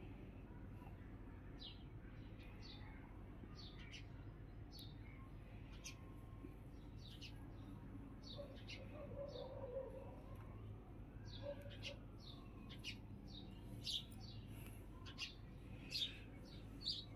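Small birds chirping: short, high chirps repeated about once a second, coming thicker and louder over the last few seconds, over a faint steady low hum.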